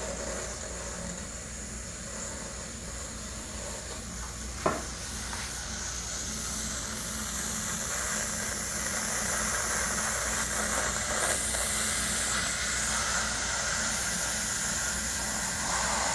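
Instant Pot Duo Evo Plus electric pressure cooker hissing steadily as steam escapes while it heats with water in it, the hiss slowly growing louder. A single sharp click comes about four and a half seconds in.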